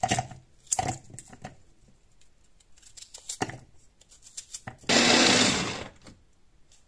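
A knife cuts through an onion and the pieces drop into a plastic chopper bowl with a few light knocks. About five seconds in, a SilverCrest electric mini chopper runs in one burst of about a second, chopping the onion.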